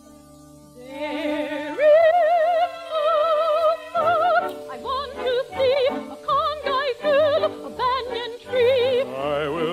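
Operetta music from an orchestra. It starts up about a second in after a brief hush, holds long notes with a strong vibrato, and then moves into a lilting accompaniment of shorter notes over bass notes about twice a second.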